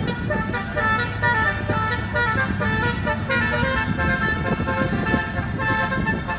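A Mekar Jaya Utama bus's telolet horn playing a tune: a run of multi-tone horn notes stepping from pitch to pitch, over the low rumble of the bus.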